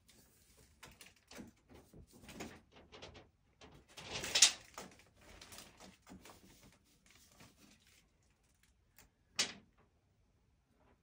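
Handling noises from measuring with a steel tape measure: the tape blade scrapes and knocks as it is moved. There are two louder, sharper scrapes, one about four and a half seconds in and a shorter one about nine and a half seconds in.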